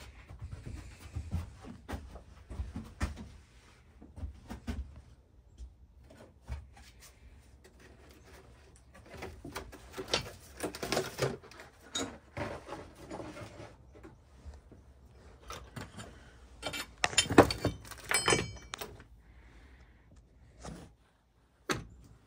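Intermittent clicks, knocks and clanks of tools and metal parts being handled. The loudest comes about three-quarters of the way through: a sharp metal clank followed by ringing clinks.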